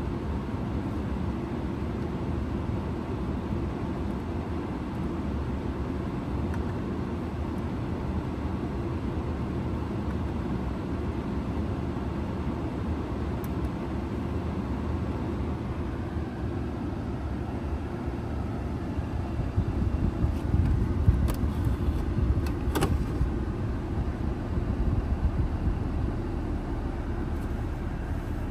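Steady low rumble inside the cabin of a 2017 BMW 740i sedan, with a few sharp clicks and louder bumps about two-thirds of the way through.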